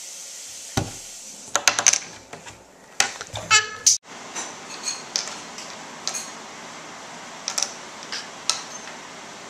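A metal fork and a bottle cap clinking and knocking against a wooden tabletop as they are handled: a dense flurry of clicks and knocks in the first few seconds, then lighter scattered taps.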